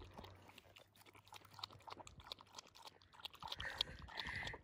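A Boston terrier lapping water from a collapsible bowl: a faint, quick, irregular run of wet tongue clicks.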